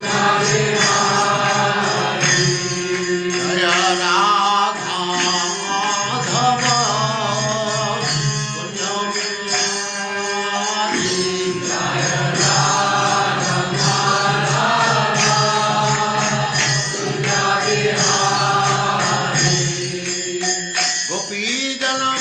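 Devotional mantra chanted in a singing voice over a steady, held drone.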